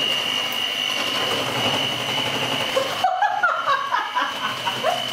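Handheld electric mixer running steadily with a constant whine as its beaters whip eggs and quark in a bowl. It cuts off abruptly about three seconds in, followed by brief chuckling voice sounds.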